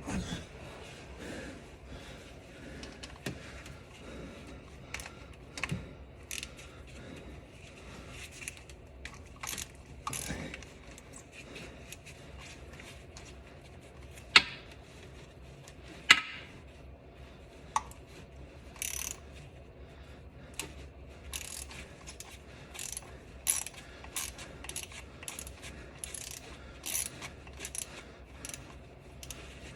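Hand tools clicking and clinking on metal while the starter is unbolted and disconnected: scattered small ticks and rattles, with a few sharper knocks around the middle and quicker, brighter clicks in the second half.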